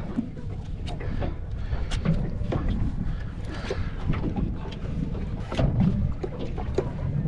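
Wind buffeting the microphone over water slapping against a small boat's hull, with scattered light knocks and splashes.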